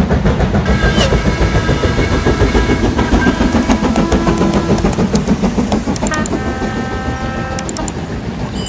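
Steam train running, with a loud, fast pulsing beat of about five a second and several high ringing tones over it; the level eases slightly near the end.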